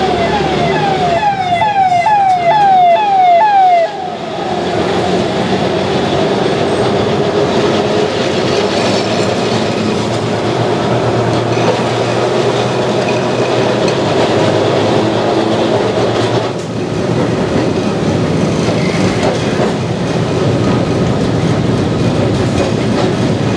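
Kolkata tram running along street track, a steady rumble of wheels on rail and the car's running gear heard from inside. For the first four seconds an electronic siren-like tone sounds over it, a quick falling whoop repeated about three times a second, then stops.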